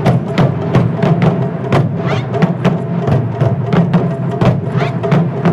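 Japanese taiko drum ensemble playing together, wooden sticks striking large barrel drums in a fast, even rhythm of about four strikes a second.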